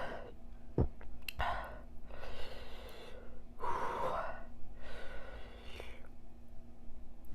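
A woman gasping and breathing out hard, about four breathy gasps in a row, as she reels from the burn of extra-spicy noodles. There are two sharp clicks near the start.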